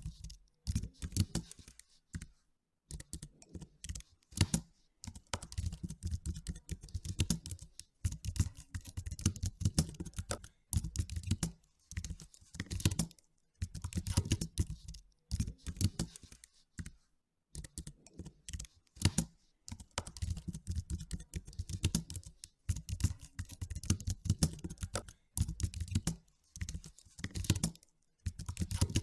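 Typing on a computer keyboard: rapid runs of key clicks in bursts a few seconds long, broken by short pauses.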